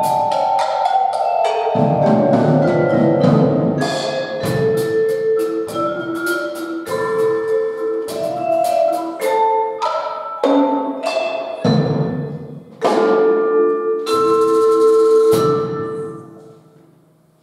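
Percussion ensemble playing: mallet keyboard instruments strike ringing notes over a drum kit with cymbals. The piece closes on a held chord that dies away about sixteen seconds in.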